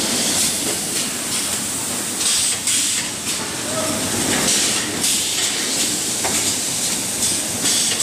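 Steady hiss and din of a packing line's machinery and fans, with a few short metallic clanks as square oil tins are handled on steel tables.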